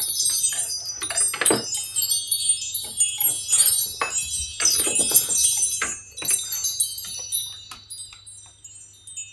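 A small set of hanging metal chimes set ringing by a dog nudging them with its nose. Repeated clusters of bright, overlapping chiming strikes ring on and fade out near the end.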